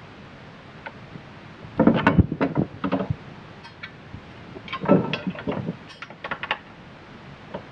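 An aluminium strut brace knocking and scraping against a car's underbody as it is pushed up into place by hand, in two bursts of clunks and rattles about two and five seconds in.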